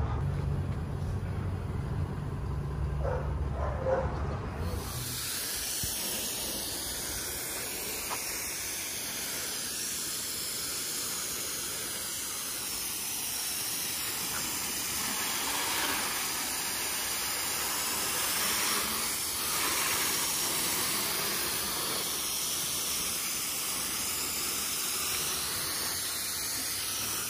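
A garden hose spraying water onto a car, a steady hiss that starts about five seconds in, after a low hum in the first few seconds.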